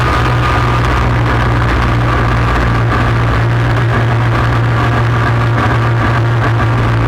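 ATV engine running at a steady cruising speed, a constant low hum with no revving or gear changes.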